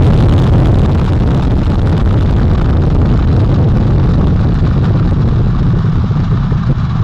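Space Launch System rocket's four RS-25 core-stage engines and two solid rocket boosters firing at full thrust as it climbs off the pad: a loud, steady, deep rumbling noise.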